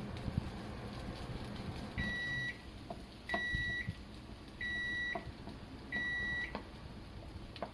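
A kitchen appliance's electronic beeper sounding four times: single high-pitched beeps about half a second long, a little over a second apart. Under the beeps a wooden spatula lightly scrapes and taps in a nonstick frying pan.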